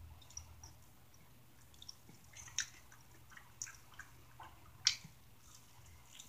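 Wet, sticky chewing and lip-smacking of someone eating barbecue honey chicken wings, with scattered soft clicks and two sharper clicks about two and a half and five seconds in.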